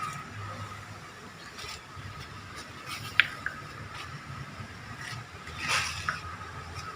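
Faint rustling and scraping as rice grains are sprinkled onto a plastic sheet stretched over a container, with a sharp tick about three seconds in.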